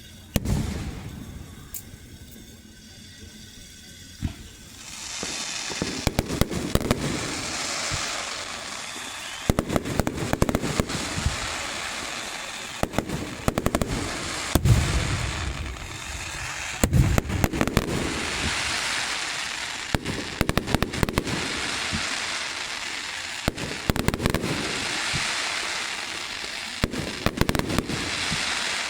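Fireworks display: one bang about half a second in, then from about five seconds a continuous crackling with many sharp pops and repeated deep booms.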